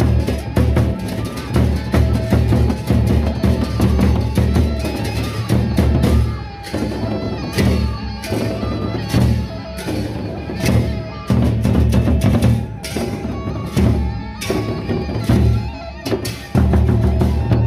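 A Sasak gendang beleq ensemble playing: big double-headed barrel drums beaten in a fast, steady booming rhythm, with metal cymbal crashes on top and a few brief breaks.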